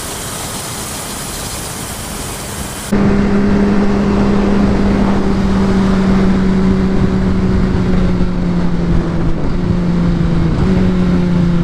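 Wind rushing over the microphone for about three seconds, then a sudden switch to a sportbike's inline-four engine running at a steady high pitch. The pitch drops a little in a couple of steps near the end.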